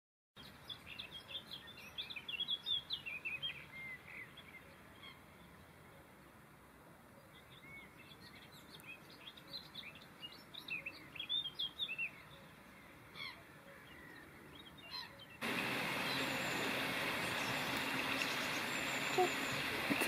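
Small songbirds chirping and trilling in short, high phrases over a quiet background. About three-quarters of the way through, the birdsong gives way abruptly to a steady, louder rushing noise.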